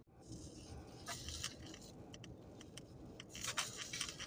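Faint crunching and chewing as a crisp tostada shell is bitten into and eaten, with scattered short clicks and two louder crunchy bursts, about a second in and again past three seconds.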